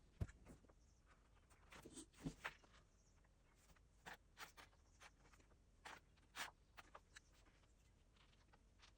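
Near silence broken by a dozen or so faint, scattered clicks and scratches as paper and cardboard are handled, glue being worked into a tear in a vinyl record sleeve with a needle.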